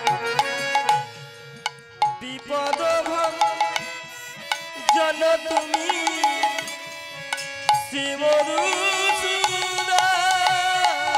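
Kirtan music: a hand drum plays a quick rhythm, thins out briefly about a second in, then returns under a melody with wavering, sliding notes.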